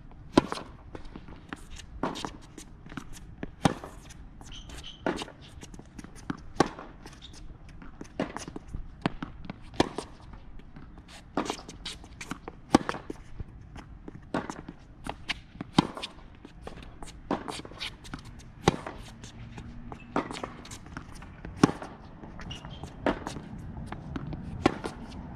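Tennis balls struck by rackets and bouncing on a hard court during a baseline rally: a run of sharp pops about every second or so, the loudest, nearest strikes coming about every three seconds.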